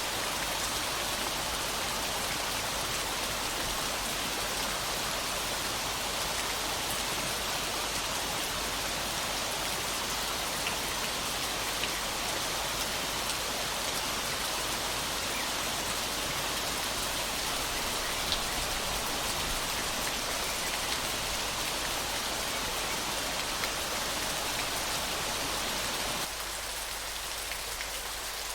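Steady hiss of splashing, falling water, a little quieter for the last couple of seconds.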